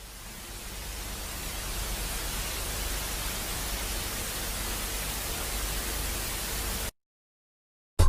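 Static hiss from an old emergency alarm recording. It fades in over the first couple of seconds, holds steady, then cuts off abruptly about seven seconds in.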